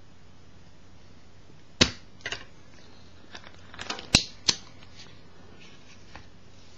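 Small hand tools being picked up and handled on a workbench: about half a dozen sharp, separate clicks and knocks, the loudest about two seconds in and just after four seconds.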